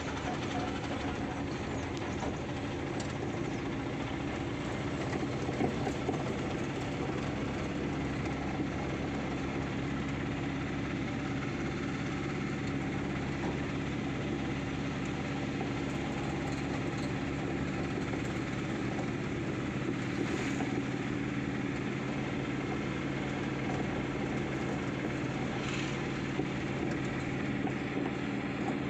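Mahindra Jeeto mini truck's engine running steadily under way, heard from inside the cab.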